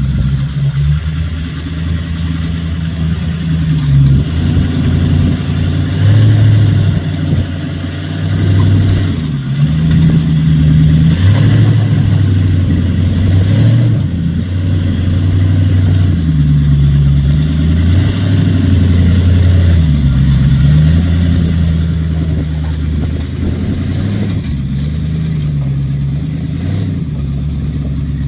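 Rock buggy's engine working the buggy up a rocky ledge, revving up and dropping back several times as the throttle is worked.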